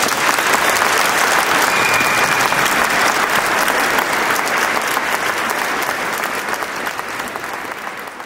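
Audience applauding, many hands clapping together, the applause slowly dying away over the last couple of seconds.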